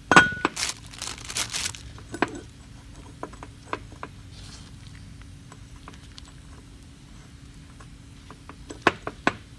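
Handling noise from greasing a plug valve's O-rings with gloved hands: plastic crinkling and light clicks of the greasy metal sleeve being turned and set down, busiest in the first couple of seconds, then only scattered clicks, with a few more near the end.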